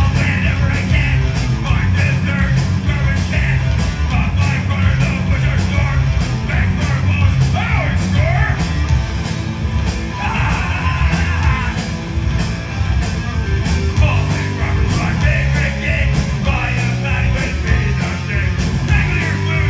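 Punk rock band playing live: distorted electric guitars, bass and drums at full volume, with a singer's shouted vocals over the top.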